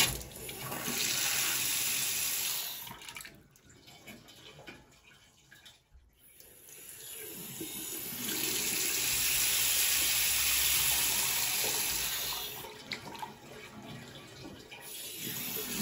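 Water running from a basin cold tap into the sink, the tap opened and closed repeatedly so that the flow swells and drops back. There is no pipe-hammer banging as the tap is shut off, the sign that the new ceramic disc spindle has cured the water hammer.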